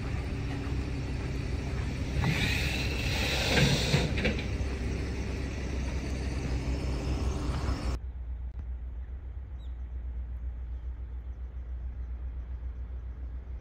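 Steady low rumble of a moving road vehicle, with a brief high squeal a few seconds in. The hiss above the rumble cuts off abruptly about eight seconds in.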